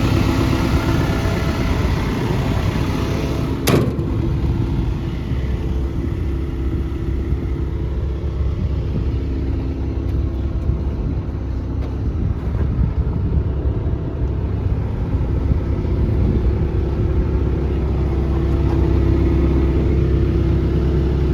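Case CX240B excavator's Isuzu diesel engine running steadily at a low, even speed, with a single sharp knock about four seconds in.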